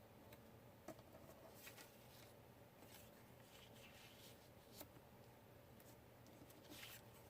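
Near silence with faint, scattered rustles and light taps of scrapbook paper being handled and laid down, over a low steady room hum.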